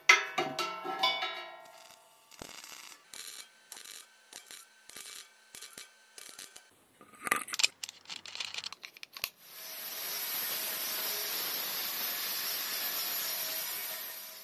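Chipping hammer tapping along the welds of a sheet-steel box, about two light taps a second, then clicks as a flap disc is fitted. From about ten seconds an angle grinder with a flap disc grinds the steel welds with a steady hiss.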